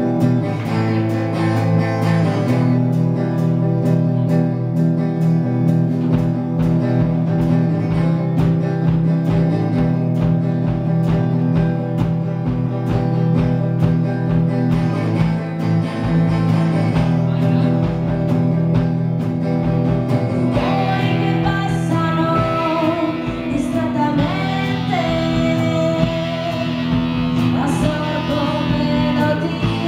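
Rock band playing live: sustained electric guitar chords, with a pulsing bass line coming in about six seconds in and a woman singing from about two-thirds of the way through.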